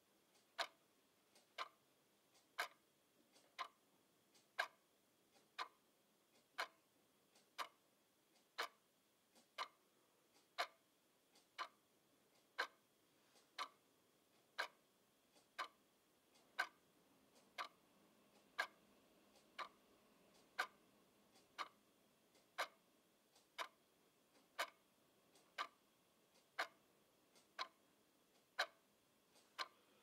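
Wall clock ticking, about one tick a second.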